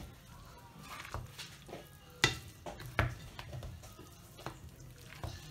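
Wooden spoon stirring moist cooked vegetables and noodles in a glass bowl: a soft wet churning of the food with irregular clicks of the spoon against the glass, the sharpest about two and three seconds in.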